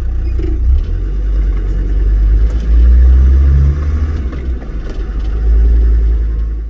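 Land Rover Td5 five-cylinder turbodiesel engine heard from inside the cab as the vehicle pulls away and accelerates at low speed, a heavy low rumble that swells twice as it pulls.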